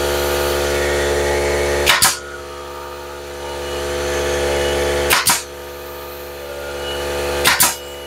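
Pneumatic 16-gauge finish nailer firing three times, about every two and a half seconds, each shot a sharp double snap as it drives a nail into pine board. A steady hum runs underneath.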